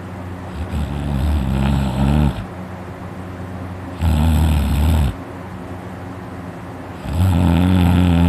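A person snoring loudly in their sleep, three long, rough snores about three seconds apart, each with a low buzzing tone. The snorer puts it down to his uvula vibrating.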